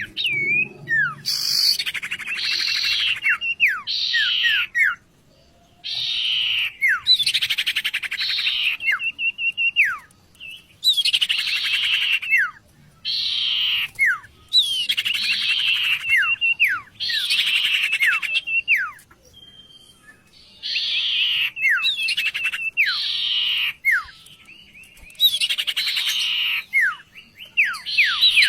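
A songbird, the sirtu, singing phrase after phrase, about one every three seconds, with short pauses between. Each phrase mixes harsh buzzy rattles with sharp, quickly falling whistle notes.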